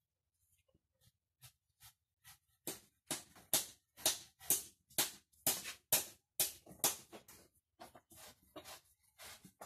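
Rhythmic scrubbing strokes, about two a second, starting a few seconds in, as valve-grinding compound is cleaned off a Honda TMX 155 motorcycle cylinder head after lapping the valves.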